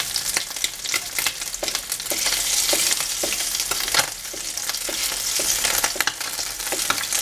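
Rice and egg mixture frying in hot oil in a glazed clay cazuela: a steady sizzle with many sharp crackles and pops, as a slotted spoon pushes more of the mixture into the pan.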